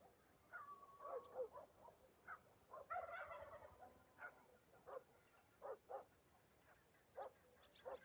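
Faint, scattered short animal calls, one every half second to a second, with a thicker flurry of calls about three seconds in.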